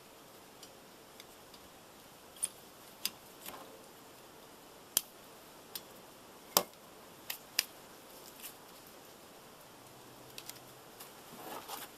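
Sharp plastic clicks and snaps of a 16-inch Rain-X rear wiper blade being pushed onto its wiper arm's clip and latched, about seven loud clicks spread over several seconds with fainter ticks between, then softer rustling near the end.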